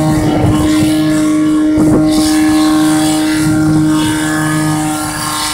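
Portable fire pump engine running steadily at high revs while pumping water out through the hoses to two nozzles.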